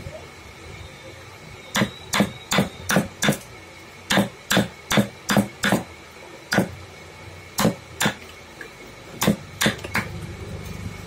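Mallet striking a steel carving chisel as it cuts into a block of hardwood: sharp knocks starting about two seconds in, two quick runs of five at about three a second, then slower single and paired strikes.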